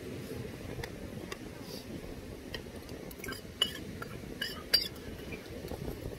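Metal spoon and chopsticks clinking against a small stainless steel bowl: a scatter of light clicks, with a few sharper clinks in the second half, over a steady low background noise.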